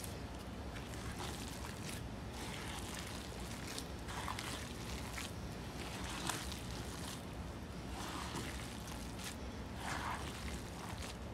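Gloved hands squishing and kneading a moist crab-meat and breadcrumb stuffing in a plastic bowl: irregular soft wet squelches and rustles as the mixture is squeezed and turned.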